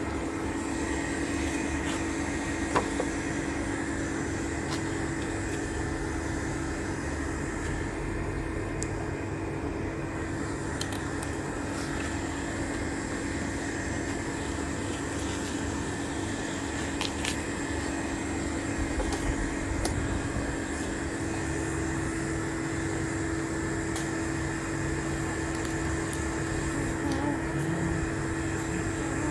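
Steady mechanical hum holding one constant low tone, with a few faint clicks over it.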